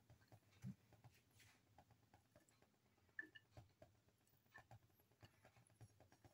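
Near silence: room tone with a few faint, scattered ticks.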